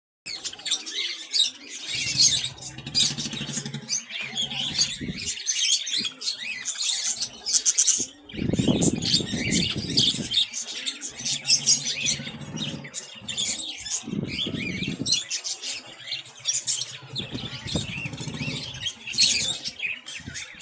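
Many caged small birds chirping and chattering at once, a dense overlapping stream of short high calls.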